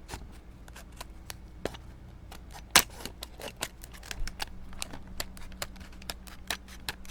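Padlock packaging being handled and pulled apart by hand: irregular plastic crackles and small clicks, with one sharp, louder click about three seconds in.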